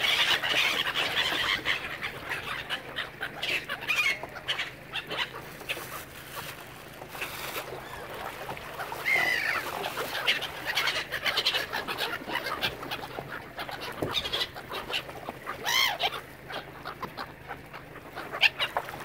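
Waterbirds calling: a busy mix of short calls, densest at the start, with a few drawn-out gliding cries about nine seconds in and again near the end.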